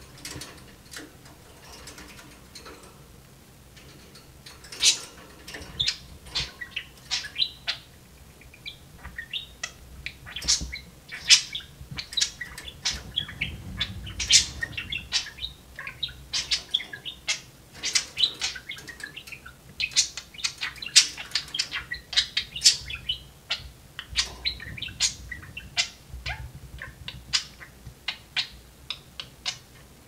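Budgerigars chattering in quick, short, high chirps, sparse at first and busier from about four seconds in.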